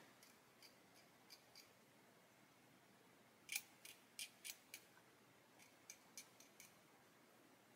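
Faint, short clicks and scratches of a hand tool scraping paint off a plastic model kit, with a quick run of about six sharper clicks around the middle.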